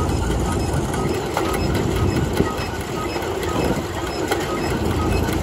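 McCormick-Deering threshing machine running empty on a flat belt from a tractor, together with the tractor's engine: a steady mechanical rumble and clatter with a light, regular ticking.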